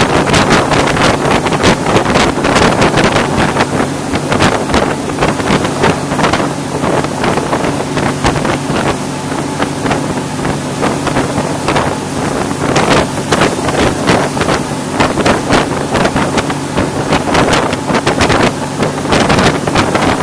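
Motorboat engine running at a steady speed, with wind buffeting the microphone in frequent gusts.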